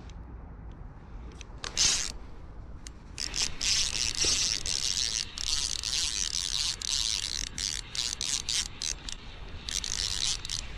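Spinning reel's drag buzzing in repeated stretches, starting about a second and a half in, as a hooked sea trout pulls line off against it, over low wind rumble on the microphone.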